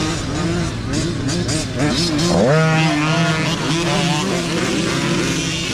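Several mini dirt bike engines revving, their pitch rising and falling as the bikes ride off, with one engine climbing sharply about two and a half seconds in.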